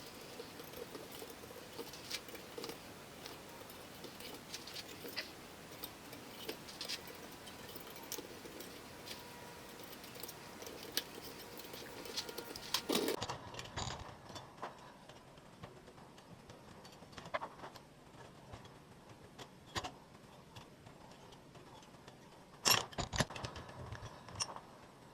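Scattered light metallic clicks and taps of hand tools working a forged steel rose petal, with a louder cluster of clicks near the end. A faint background hiss drops away about halfway through.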